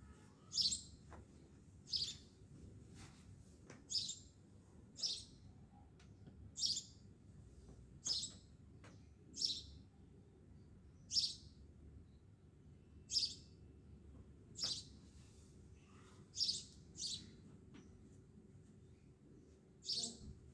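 A bird chirping: short high chirps repeated about every one to two seconds, over a faint low background rumble.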